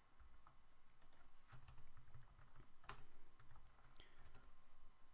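Faint computer keyboard typing: irregular key clicks, with one sharper click about three seconds in.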